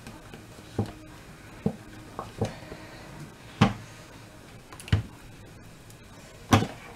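Metal ice cream scoop knocking and scraping against a plastic ice cream tub and square bowls while ice cream is scooped out and dropped into the bowls. About seven short knocks; the loudest comes a little past halfway and again near the end.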